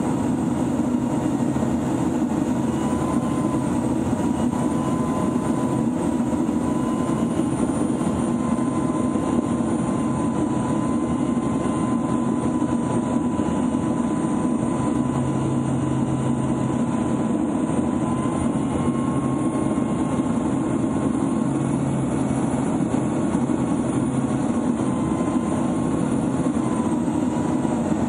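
Pilatus PC-9M's turboprop engine and propeller heard on board in flight: a steady loud drone with a high turbine whine that wavers slightly in pitch as the power changes.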